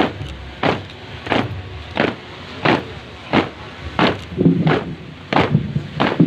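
Troops marching in step on asphalt, their boots striking the road together in a steady beat of about three stamps every two seconds.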